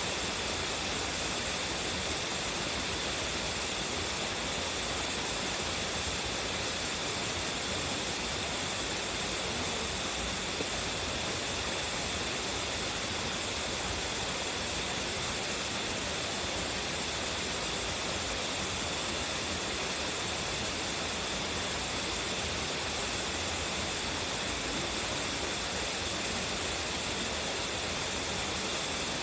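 A waterfall with a strong flow, its water falling and rushing in a steady, unbroken roar.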